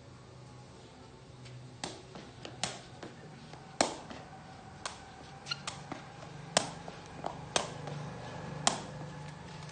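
A woven plastic sepak takraw ball being kept up in the air: about ten sharp, hollow taps as it is struck off the foot and knee, at an uneven pace with a faint steady hum underneath.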